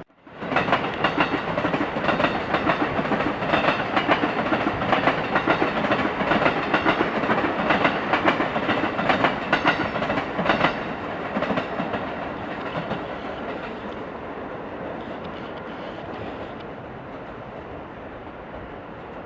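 Train wheels clattering over rail joints and points as a train runs past. The clatter is loud for about ten seconds, then eases off into a quieter, steady rumble as the train moves away.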